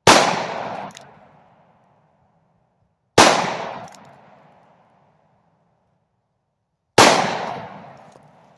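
Three loud shots from a Charter Arms Bulldog .45 Colt snub-nose revolver, spaced about three and a half seconds apart. Each shot trails off in echo over about a second and a half.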